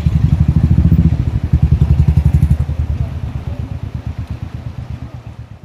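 A small engine running with a fast, even pulse, fading away steadily over the second half.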